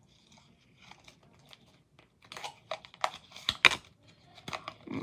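A deck of playing cards being handled and shuffled: irregular papery rustles, then faster scraping and snapping strokes from a little past halfway.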